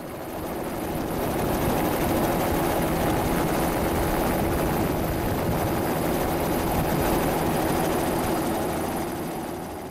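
Helicopter engine and rotor noise, heard from aboard the aircraft in flight: a loud, steady drone that swells over the first second or two and drops away near the end.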